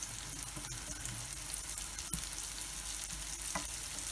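Eggs frying in oil in a pan over an onion and spice mixture: a steady sizzle with a few faint ticks.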